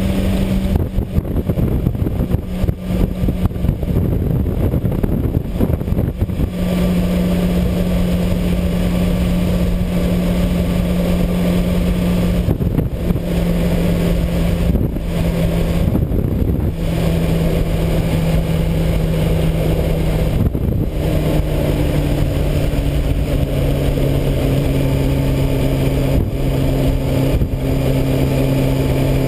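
Honda CBR600RR's inline-four engine running at a steady cruise over a constant rush of wind and road noise. Its note drops out briefly a few times, and about two-thirds through it settles at a lower pitch.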